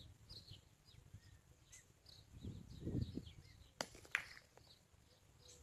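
Steel pétanque boule crunching over gravel as it rolls in, then two sharp metal clacks less than half a second apart as it strikes another boule. Birds chirp throughout.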